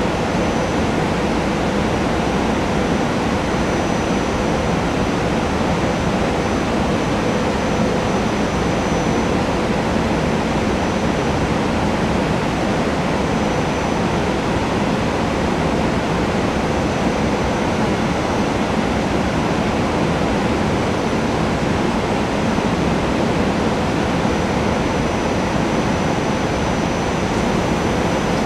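Silverliner IV electric multiple-unit standing at the platform, its ventilation and air-conditioning blowers running with a steady rushing hum and a faint thin whine.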